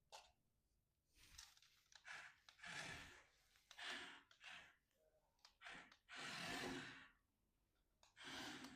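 A person breathing and sighing close to the microphone: a series of faint, noisy breaths, each under a second long, with a longer exhale about six seconds in.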